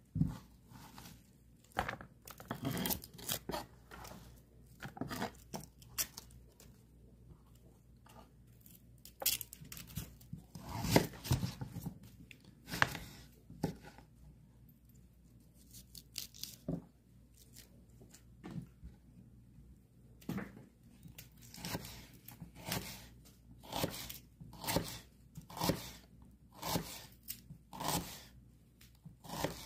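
A kitchen knife slicing white onion on a wooden cutting board: crisp cuts through the onion, each ending in a knock on the board. The strokes come unevenly at first and then, over the last third, steadily about once a second.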